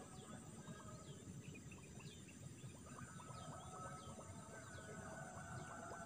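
Faint swamp ambience: a steady high drone of insects with many short, repeated falling bird chirps over it, and a few longer held calls joining about halfway through.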